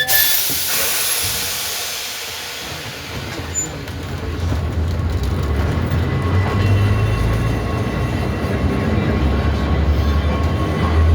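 Manx Electric Railway tramcar running along the track: a sharp knock at the start, then a hiss that fades, then a low rumble of motors and wheels on rail that builds and grows louder from about four seconds in.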